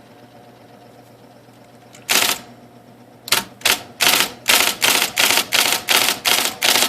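IBM Selectric electric typewriter test-typing after a rotate-arm adjustment: its motor hums steadily, then the type ball strikes once about two seconds in, twice more a second later, then a regular run of strokes at about three a second.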